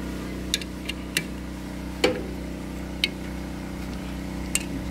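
Short, sharp metallic clinks of hand tools on the steel parts of an excavator swing reduction gearbox being reassembled, about six scattered through, the loudest about two seconds in. Underneath runs the steady low hum of an engine.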